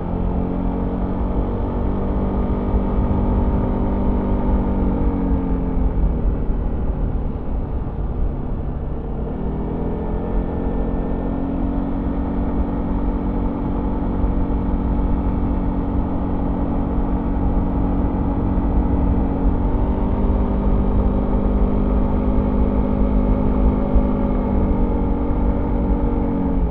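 Yamaha XMAX 300 scooter's single-cylinder engine with its stock exhaust, heard from on board while riding, over a steady low rumble. The engine note holds steady, falls away about five seconds in, climbs back up around nine to eleven seconds, steps up again around twenty seconds and drops near the end.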